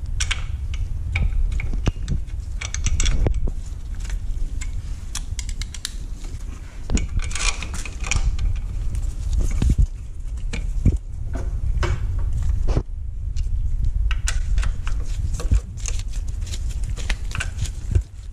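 Irregular metal clicks, clinks and scrapes of a Torx T-handle driver working the bolts of a motorcycle's rear footpeg and brake-pedal bracket, over a steady low rumble.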